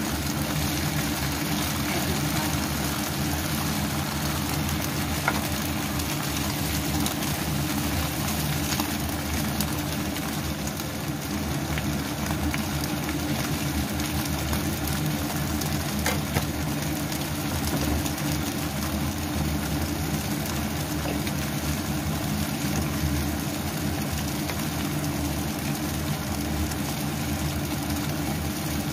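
A steady mechanical hum from the kitchen, with napa cabbage and its added water cooking in a wok; a few light knocks now and then.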